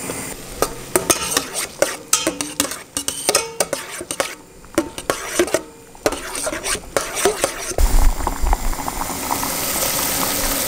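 Metal tongs stirring a garlic, chili, olive oil and white wine sauce in a pot, clicking and scraping against the pan many times in quick succession. A little under two seconds before the end the clicks stop and a steady sizzle of the simmering sauce takes over.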